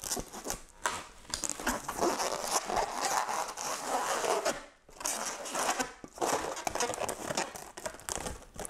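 Latex modelling balloon being handled and twisted into shape, rubbing and crinkling in irregular bursts.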